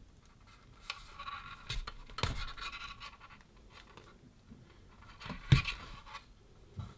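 Fingers scratching and rustling against a thin red-and-black wire lead and its small plug, with a few sharp clicks and taps, the loudest about five and a half seconds in.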